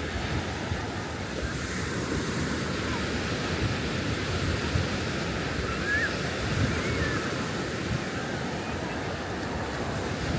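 Surf washing steadily onto a beach, with wind on the microphone.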